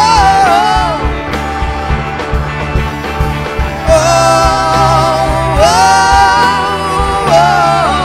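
A rock band playing live with a sung melody of long held notes. The voice drops out for a few seconds after the first second and comes back about four seconds in, over bass and drums.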